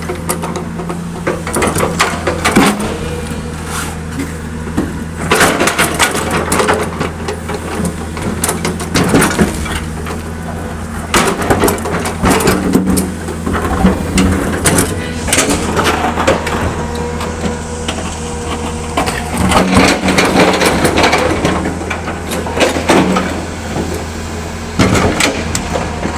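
L&T PC200 hydraulic excavator's diesel engine running steadily under irregular bursts of rock crunching, scraping and cracking as the machine works broken stone. The crunching comes in clusters every few seconds, loudest around a third of the way in and again near the three-quarter mark.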